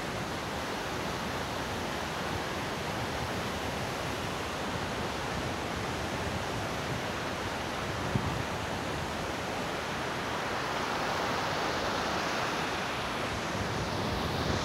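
Steady rush of a river tumbling over rocks, with uneven wind rumble on the microphone and a brief knock about eight seconds in.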